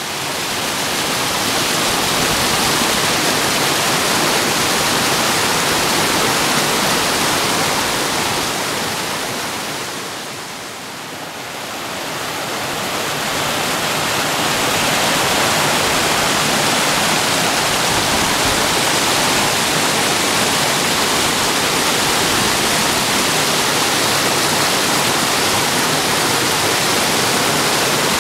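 Mountain stream rushing and splashing over rocks, a loud steady rush that dips briefly about eleven seconds in, then comes back up.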